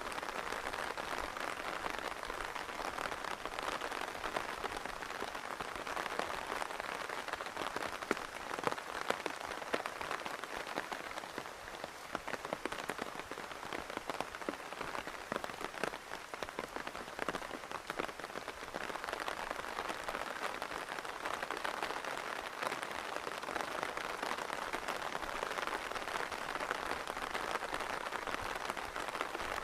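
Steady rain falling on surfaces, with many close drops heard as sharp individual ticks over an even hiss.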